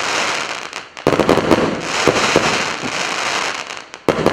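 'Tsvetopredstavlenie' 100-shot, 1-inch consumer firework battery firing: a dense run of shots and crackling bursts. It drops away sharply about a second in and again near the end, then starts again at once.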